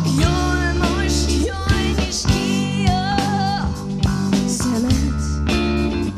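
Live rock band playing: a woman singing over a Telecaster-style electric guitar, bass guitar and drums.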